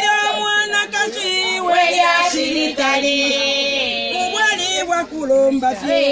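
Women's voices singing a traditional Zambian song together, several voices overlapping.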